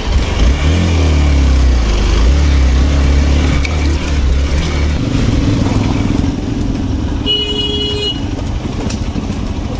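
Motorcycle engine running hard on a muddy off-road climb: a deep, loud rumble whose pitch rises and falls near the start as it revs, turning steadier after about five seconds. A short horn toot comes near eight seconds.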